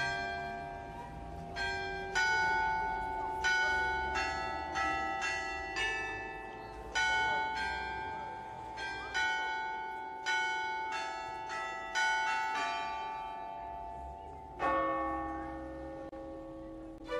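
Church bells ringing a peal: a series of single strikes, about one to two a second, each tone ringing on and fading, with a deeper bell striking near the end.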